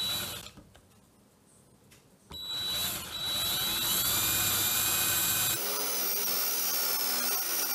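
Electric drill with a twist bit boring into a plywood plate. A brief whine at the start, then a pause of about two seconds, then the drill runs steadily with its pitch rising as it speeds up.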